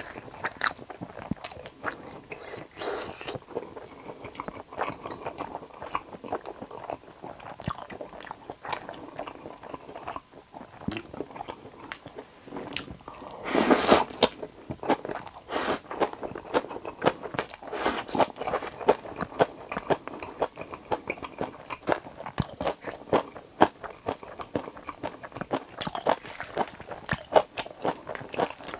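Close-miked mouth sounds of eating Chapagetti black-bean noodles with green onion kimchi: wet chewing with many small crunching clicks, and a loud slurp of noodles about fourteen seconds in.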